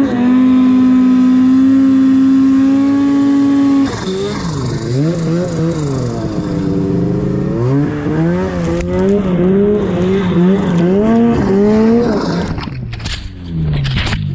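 Arctic Cat snowmobile engine held steady at high revs for about four seconds, then revving up and down over and over as the throttle is worked on a steep snow slope. Near the end the engine drops away under rough rushing noise and several sharp knocks.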